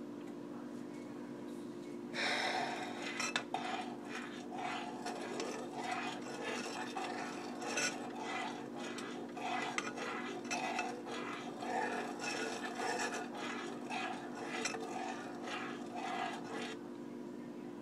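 A utensil scraping and stirring in a pan of heating honey, in repeated strokes about one to two a second, starting about two seconds in and stopping shortly before the end, over a steady low hum.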